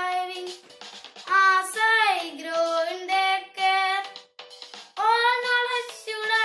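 A boy singing solo, holding long notes with gliding pitch between them.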